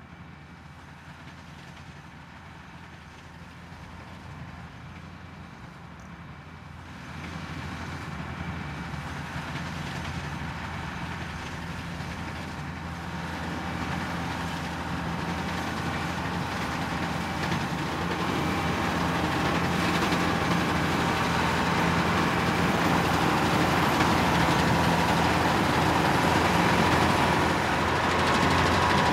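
New Holland 8050 combine harvester with its six-cylinder engine running steadily while harvesting rye. It grows steadily louder as the machine comes closer, with a jump in loudness about seven seconds in.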